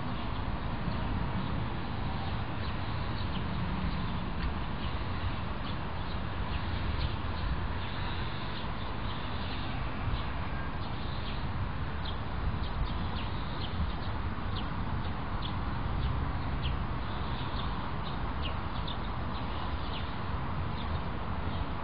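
Outdoor ambience: many short, high bird chirps scattered throughout, over a steady low rumble.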